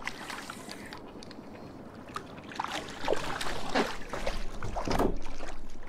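A hooked bass thrashing and splashing at the water's surface beside a small boat as it is reeled in. The splashes are irregular and grow louder from about halfway through.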